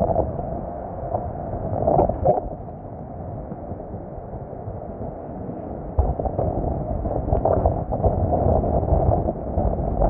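Blizzard wind gusting against the microphone, a noisy buffeting that swells about two seconds in and turns louder and choppier after a sudden jump about six seconds in.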